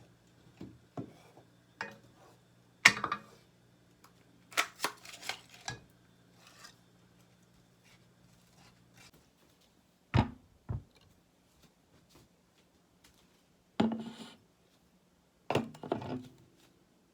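Scattered knocks and clatters of kitchen utensils and dishes being handled, irregular and separated by quiet gaps. A faint low hum runs underneath and stops about halfway through.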